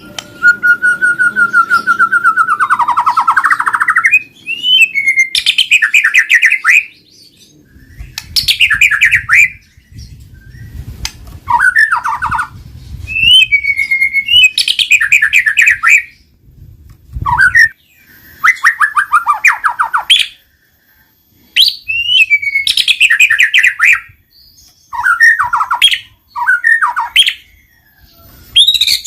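White-rumped shama (murai batu) singing loud, varied song in phrases of one to three seconds with short pauses between them: clear whistles, sweeping notes and rapid stuttering trills.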